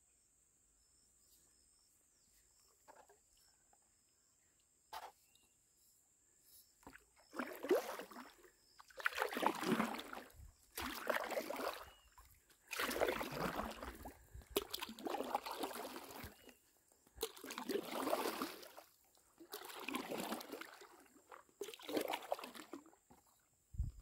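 Paddle strokes in calm river water: after about seven quiet seconds, a regular splashing swish comes about every one and a half seconds, around ten strokes in all.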